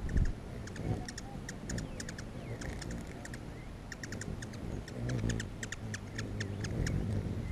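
Hummingbirds squabbling around a nectar feeder: quick runs of high, squeaky chip notes and chatter, over the low buzzing hum of their wings, which grows stronger near the end. A brief low bump comes just at the start.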